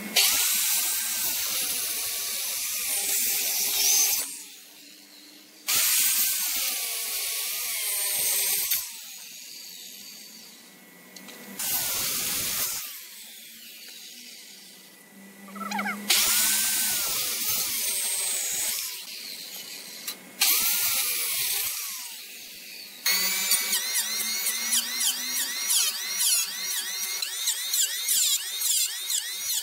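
Hand-held electric circular saw cutting the edge of a thick hardwood slab in a series of five cuts of a few seconds each, with short pauses between them. From about 23 s an electric hand planer runs against the edge with a steady buzzing hum.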